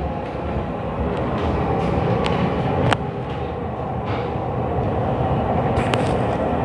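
Noise from the upstairs apartment coming through the ceiling: a steady rumble and rattle with a few sharp knocks, typical of plumbing running and a light fixture rattling.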